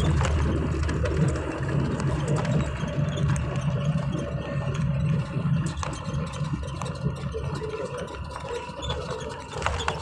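Engine and road noise of a moving vehicle heard from inside the cabin: a steady low rumble that gets a little quieter toward the end.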